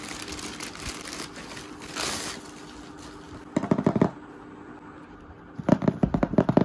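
Plastic courier mailer crinkling and rustling as it is torn open and pulled away, then fingers tapping rapidly on a cardboard box in two short bursts, the second near the end and the louder.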